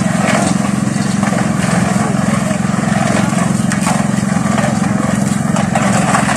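Small engine of a portable drum concrete mixer running steadily under load, a continuous low drone with fast even pulsing, while cement is loaded into the drum.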